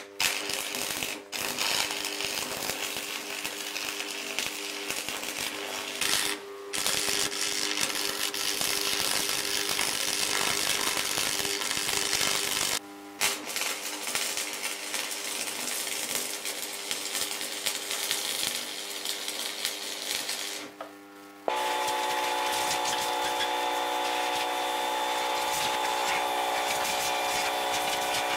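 Angle grinder working steel, a loud rasping whine that stops and restarts briefly three times. About 21 seconds in it gives way to a steadier sound with a hum of several held tones.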